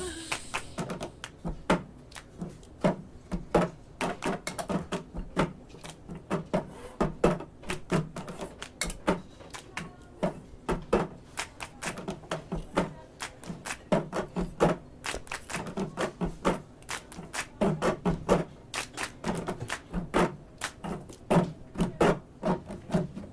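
A long run of irregular, sharp clicks and knocks, several a second, with no steady beat.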